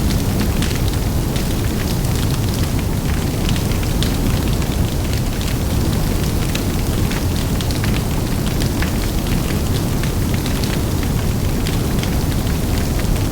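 Large open fire burning: a steady, deep rushing noise from the flames, with frequent sharp crackles and pops scattered irregularly through it.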